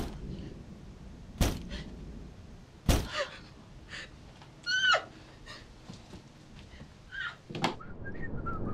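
Two heavy thuds about a second and a half apart, then a few short, high squeaky sounds whose pitch bends.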